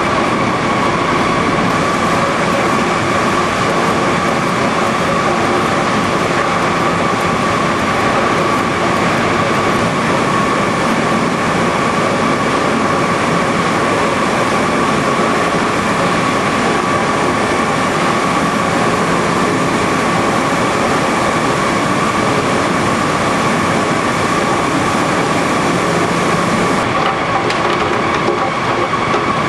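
Fruit-processing plant machinery running: a loud, steady mechanical din with a constant high whine. The highest hiss drops away near the end.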